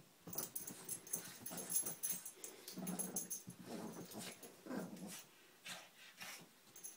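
Two Boston terriers play-fighting, growling and grunting in short irregular bouts, the heaviest three about a second apart around the middle.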